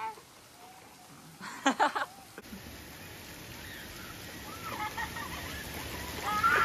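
Heavy rain falling on a flooded street, a steady even noise that grows louder over the last few seconds. About a second and a half in comes a short, high, wavering cry from a person.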